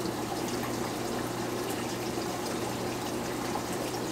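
Aquatop nano aquarium's built-in filter running: water trickling steadily back into the tank over a constant low pump hum.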